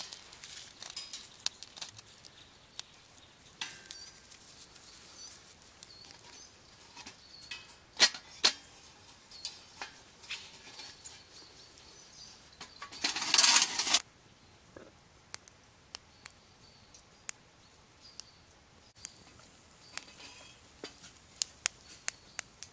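Small wood-shaving and twig fire crackling in a folding metal twig stove, with scattered sharp snaps and pops. There is a louder rustling burst about halfway through, and a few clinks near the end as sticks are pushed into the stove.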